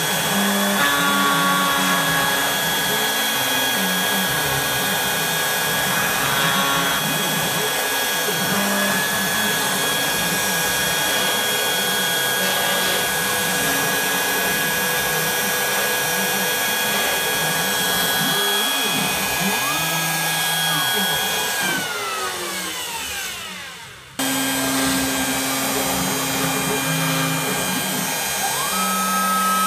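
CNC router spindle whining steadily while engraving lettering with a V-bit, with the stepper motors humming in shifting pitches as the gantry moves. A little over 20 seconds in, the spindle spins down, its pitch falling, and the sound drops away. It then cuts back in, and near the end another spindle whine rises to a steady pitch.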